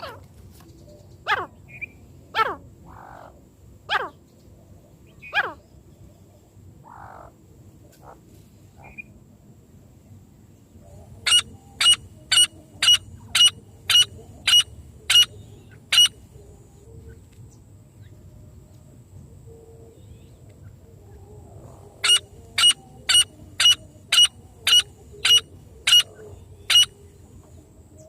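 Francolin calling: a few whistles falling steeply in pitch, then two runs of about nine loud, sharp calls, about two a second, each run lasting around five seconds.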